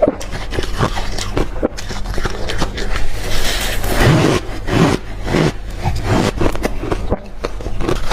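Hard, deep-freezer crushed ice being chewed close to the microphone: a run of irregular crunches, several a second.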